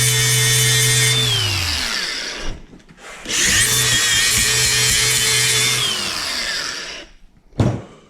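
A handheld electric power tool runs, then spins down with falling pitch. It is started again a moment later, runs steadily for a few seconds and spins down once more. A sharp knock comes near the end.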